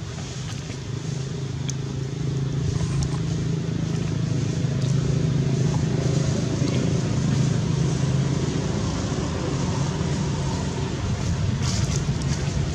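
A motor vehicle's engine running, a steady low hum that grows louder over the first few seconds and eases off slightly toward the end.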